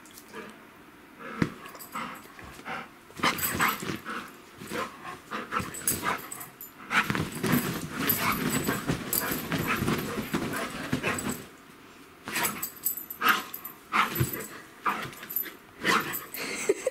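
Golden retriever doing tight-circle zoomies on a quilted bedspread: the quilt rustles and paws scrabble and dig in bouts, densest through the middle and again near the end.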